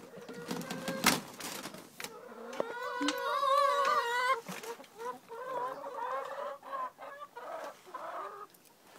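Ex-battery hens clucking as they come out of the coop, with one long wavering call about three seconds in and shorter clucks after it. A sharp knock about a second in.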